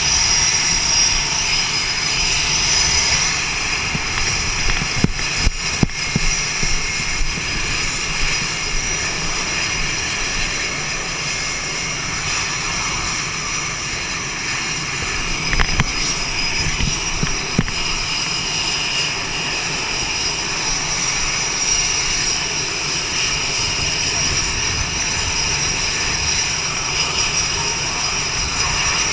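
Jet engines of F/A-18 Hornets running on an aircraft carrier flight deck: a steady, loud rush with a high whine. A few short sharp knocks come through about 5 and 16 seconds in.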